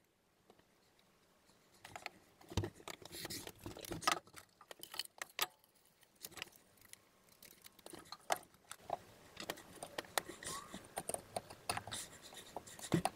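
Irregular clicks, knocks and light clatter of test gear being handled and set down on a wooden table: a wooden board, metal clamps and a bathroom scale. The clatter starts about two seconds in.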